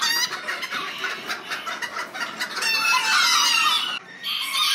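Miniature kikiriki chickens in rows of wire cages, calling and clucking over one another. A rooster gives one long, falling crow a little past the middle.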